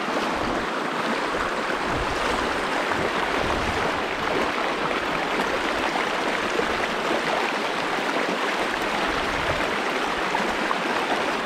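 Steady rushing of a river flowing over stones, an even wash of water noise with no breaks.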